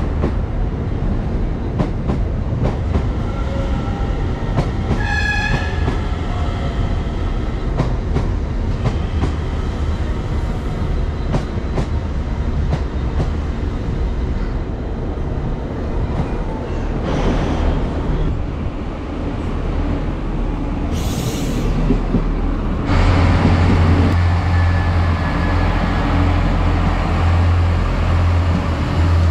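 DART electric commuter train at the platform, with a steady rolling rumble and a short horn-like tone about five seconds in; a brief high hiss comes near twenty-one seconds. From about twenty-three seconds an Irish Rail InterCity diesel railcar runs alongside the platform, its engines giving a louder, steady low hum.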